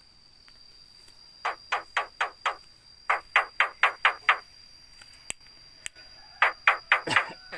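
Javan myna (jalak kebo) giving short, sharp, harsh calls in three quick runs of four to six notes, about four notes a second.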